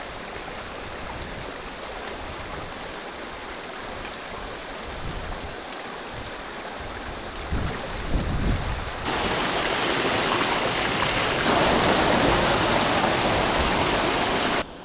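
Steady rushing of water at Kinder Downfall, a moorland waterfall running unusually full. The rush jumps louder about nine seconds in, again a couple of seconds later, and cuts off abruptly just before the end.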